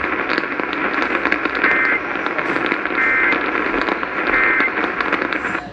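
Weather radio receiver hissing with heavy static, carrying three short two-tone data bursts about 1.3 seconds apart: the SAME end-of-message code that closes a severe thunderstorm warning. The static cuts off near the end.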